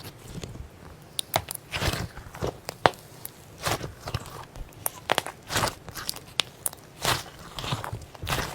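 Slime being squeezed and poked by hand, giving an irregular string of sharp pops, clicks and short crackly squishes.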